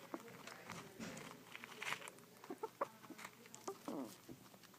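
An animal making a strange noise while eating: irregular sharp clicks mixed with short pitched calls, one longer falling call about four seconds in.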